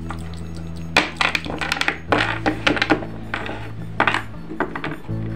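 Small hard plastic toy figures and accessories clicking and tapping against each other and the tabletop as they are handled, in a run of light, irregular clicks.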